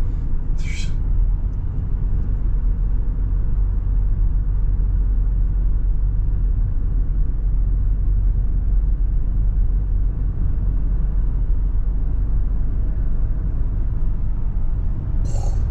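Steady low rumble of road and engine noise inside a moving car's cabin. There is a brief hiss about half a second in and again near the end.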